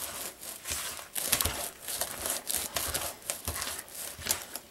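Cookie dough being mixed by hand in a bowl as flour is worked in: irregular rustling and scraping.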